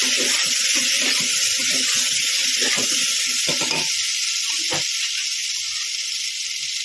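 Chopped potatoes, tomatoes and onions sizzling in hot oil in an aluminium pressure cooker as they hit the tempering. A ladle clinks and scrapes against the pot for the first few seconds, then the steady sizzle carries on alone, easing slightly.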